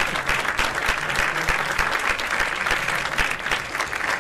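Audience applauding, many hands clapping at once in a steady, dense patter.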